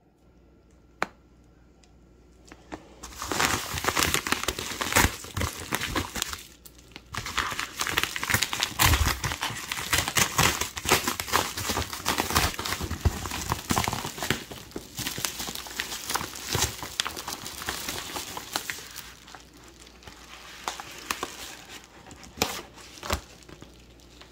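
A padded paper mailer envelope being torn open and crumpled by hand: dense crinkling and tearing that starts about three seconds in and grows lighter after about nineteen seconds.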